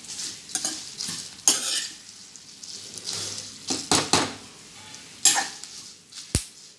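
Steel ladle stirring dried Byadagi red chillies as they roast in a little oil in a pan: irregular scraping and rustling strokes against the pan, with a sharp clink near the end. The chillies are being roasted until crisp.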